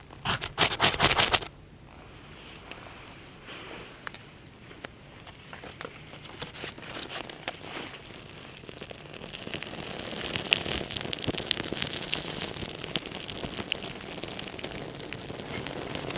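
A short, loud flurry of crackling and rustling in the first second, then a wood campfire crackling with many sharp pops, growing steadily louder over several seconds as the fire catches and then holding.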